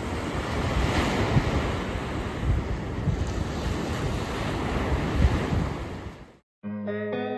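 Ocean surf washing in, with wind buffeting the microphone in gusty low thumps. It fades and cuts off about six seconds in, and guitar music starts right after.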